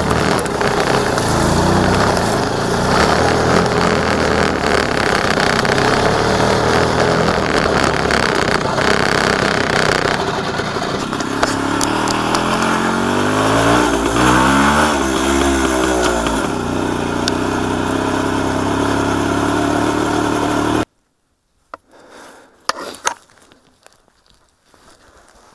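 WSK 125 Lelek's single-cylinder two-stroke engine running while the motorcycle is ridden. The revs rise and fall several times in the middle, then hold steadier. The sound breaks off suddenly about four-fifths of the way through, leaving only faint rustles and a few clicks.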